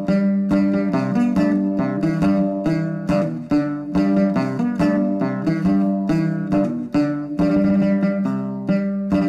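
Music: a plucked string instrument playing a quick run of notes.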